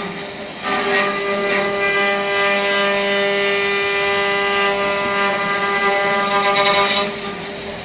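Multi-spindle CNC wood carving machine running, its router spindles whining at a steady pitch while the cutters carve the rotating wooden blanks with a dense hiss. The cutting noise drops briefly at the start and again near the end.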